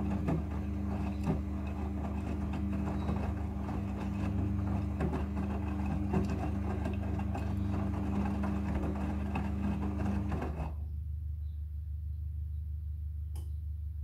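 Midea front-loading washing machine turning its drum during a soak cycle: a steady motor hum with wet clothes tumbling and water sloshing inside. The drum stops about ten seconds in, leaving only a low hum.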